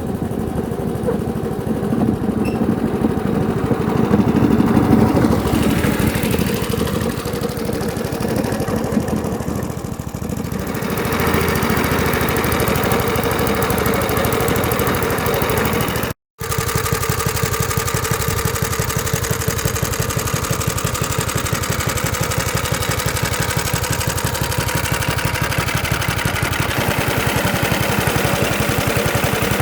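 Qualcast Suffolk Punch 35S cylinder lawnmower's small single-cylinder petrol engine running steadily. The sound breaks off for a split second a little past halfway, then the engine carries on evenly.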